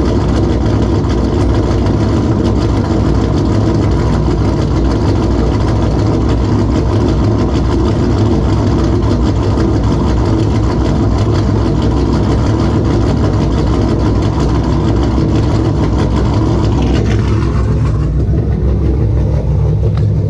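Cammed 6.4-litre 392 Hemi V8 idling steadily through a straight-piped exhaust with long-tube headers. Near the end the sound turns duller, losing its high end.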